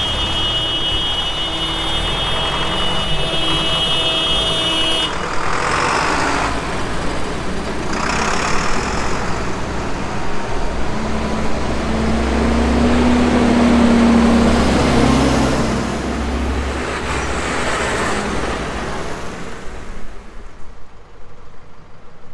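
A column of farm tractors drives past on a wet street: diesel engines rumble and tyres hiss on the wet road. One tractor passes close about two thirds of the way through and is the loudest point. The traffic fades near the end.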